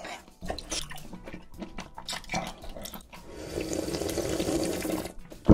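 Close-miked slurping of spicy jjamppong broth drunk straight from the bowl: a few light clicks and taps, then a steady slurp of about two seconds past the middle, and one sharp click at the very end.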